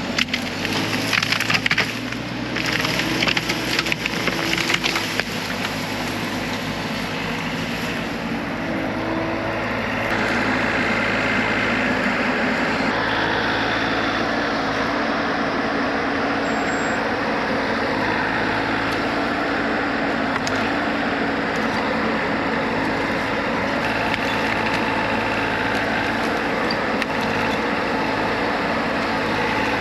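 Bobcat E42 mini excavator's diesel engine running under load. Wood cracks and splinters sharply through the first few seconds as trees and brush are broken and pushed over. After that the engine runs on steadily, a little louder from about ten seconds in.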